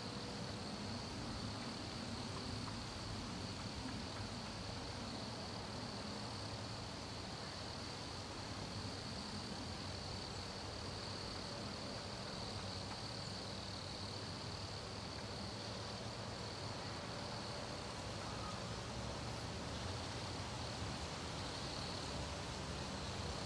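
Wood crickets (Nemobius sylvestris) singing in chorus: one steady, high-pitched note that never breaks, over a faint low hum.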